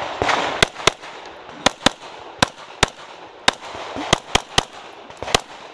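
Pistol fire from a SIG P320 fitted with a Grey Guns Lockwood slide: about a dozen shots, mostly in quick pairs a fraction of a second apart with short pauses between pairs.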